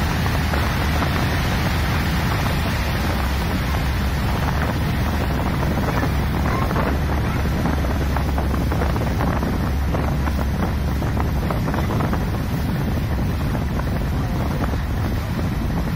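Thames Clipper river boat under way: its engines run with a steady low hum under a rushing noise of wind buffeting the microphone and water going past the hull.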